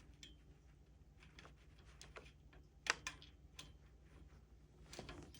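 Faint, scattered clicks and taps of small assembly parts being handled as the end of a planter frame bar is fitted over a screw and washer, with one sharper click about three seconds in.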